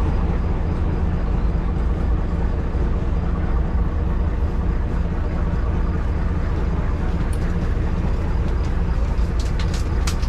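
Motorboat engine running steadily underway: a constant low drone with a rushing noise over it, and a few sharp clicks near the end.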